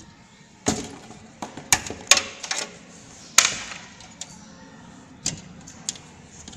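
Several sharp clicks and knocks as the SATA data and power connectors are pulled off a desktop computer's hard disk, with cables and fingers knocking against the metal case; the loudest comes a little past three seconds in.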